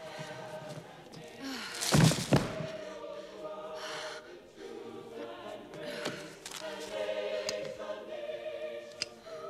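A choir singing slow sustained chords, with a loud heavy thud about two seconds in and smaller knocks later.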